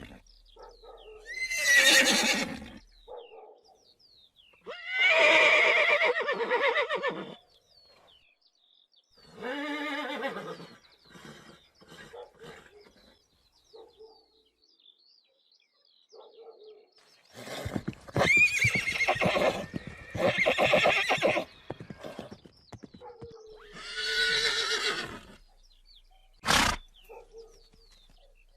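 Horses neighing and whinnying: a series of separate loud, quavering calls that fall in pitch, with short pauses between them, and one brief sharp call near the end.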